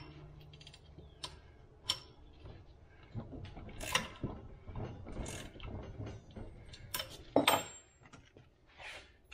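Hand ratchet wrench clicking in irregular strokes as bolts are cranked down on an Eaton self-adjusting truck clutch pressure plate to reset it, with a few sharper metal knocks; the loudest come about seven seconds in.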